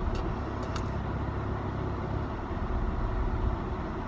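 Steady low rumble of a car heard from inside its cabin, with two faint clicks a little under a second in.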